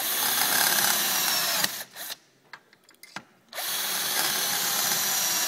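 Electric drill boring screw holes through a roller ski's metal frame for a binding, in two runs: the first stops about a second and a half in, its pitch falling slightly, and the second starts again after a pause of about two seconds.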